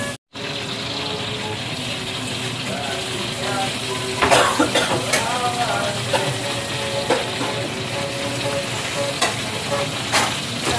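Meat sizzling as it fries in oil in a wok, with metal tongs and a spatula clicking and scraping against the pan several times from about four seconds in.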